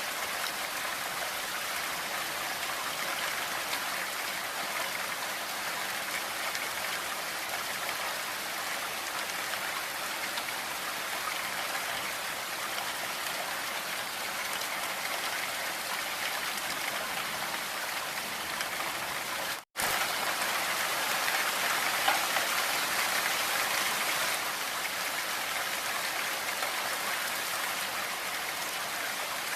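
Blizzard wind blowing through forest trees: a steady hiss of wind and blowing snow. It cuts out for a split second about twenty seconds in, then comes back a little louder for a few seconds before settling again.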